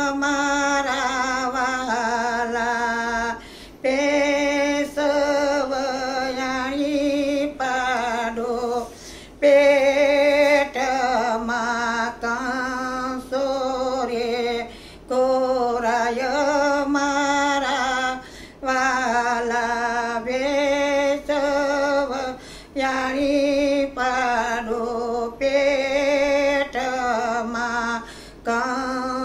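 A woman singing a Gujarati devotional kirtan in long, wavering phrases with short breaks for breath between them.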